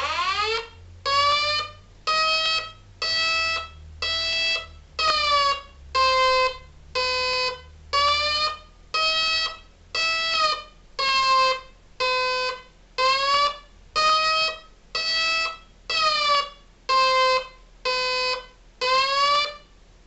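Homemade Megablaster Jr mini tornado siren sounding its pulse-plus-attack signal: a shrill siren tone cut into short blasts about once a second, its pitch slowly wavering up and down from blast to blast.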